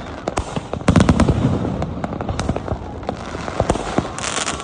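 Fireworks display going off: a run of sharp bangs and crackles, with a dense cluster of loud bangs about a second in and a hissing, crackling burst shortly before the end.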